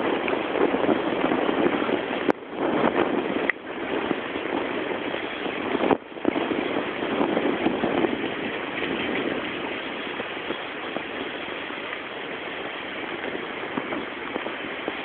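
Steady rushing of river water. It cuts out briefly three times in the first six seconds.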